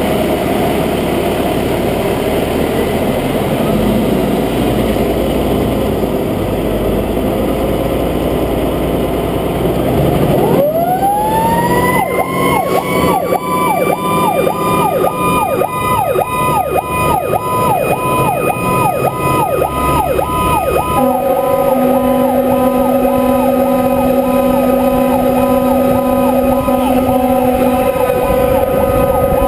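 Fire truck's diesel engine running as the truck pulls out. About a third of the way in, its siren winds up, rising in pitch and settling into a regular warble with quick dips. About two-thirds in, a horn joins with steady low tones for several seconds.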